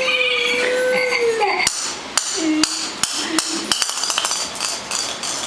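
A hard plastic toy ball knocking and clattering on a concrete floor while a puppy plays with it: a dozen or so sharp, irregular knocks over about two seconds. Before them, in the first second and a half, comes a drawn-out whine.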